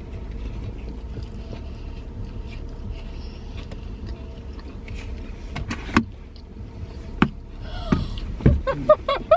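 Steady low vehicle rumble, with a few sharp clicks in the second half.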